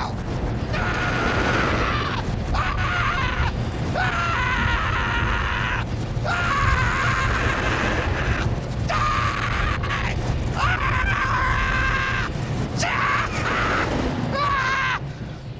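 A man screaming again and again on a roller coaster ride, in a string of long held screams a second or two each, over a steady loud roar of rushing wind and the rumble of the ride.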